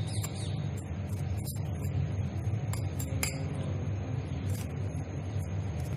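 Metal spoon stirring a dry sattu filling in a glass bowl, scraping and now and then clinking against the glass, a few separate clicks, over a steady low hum.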